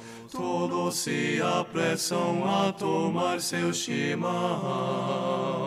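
Background music: voices singing a song in Portuguese, with notes changing about every half second.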